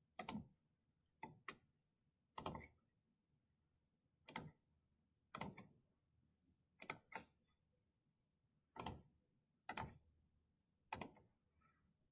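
Computer mouse clicking, faint single clicks and quick pairs of clicks spaced about one to two seconds apart, selecting faces one by one in CAD software.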